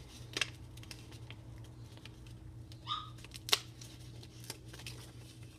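A sheet of plain printing paper rustling and crinkling in the hands as a punched-out shape is worked loose from it, with a few light clicks and one sharper click about three and a half seconds in.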